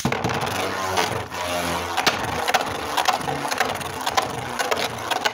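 A Dread Bahamut Beyblade top, set to spin right-handed, just launched and spinning across a plastic Beystadium floor: a steady rattling whir broken by many sharp clicks as it skids and knocks against the bowl.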